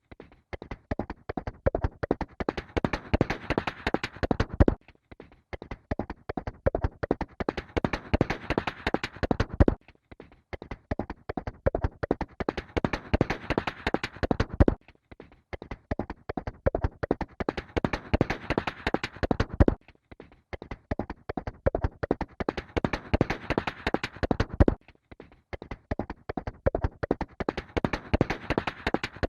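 Horse hooves galloping, a fast run of hoofbeats. The same stretch of about five seconds repeats over and over, each pass starting softer, growing louder, then cutting off abruptly.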